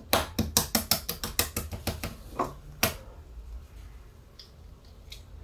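A fast run of sharp taps, about six a second, as an egg is knocked again and again against the rim of a bowl to crack it. The taps slow and end with a last louder knock about three seconds in, followed by faint small ticks of handling the egg shell.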